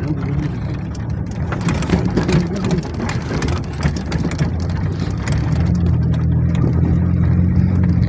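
Engine and road noise of a vehicle heard from inside its cabin, a steady low drone, with a run of rattles and knocks for a few seconds in the middle.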